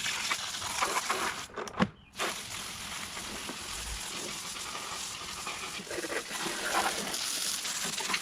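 Garden hose spraying water over a lawn mower, rinsing off foaming engine cleaner, as a steady hiss of spray that breaks off briefly with a click about two seconds in.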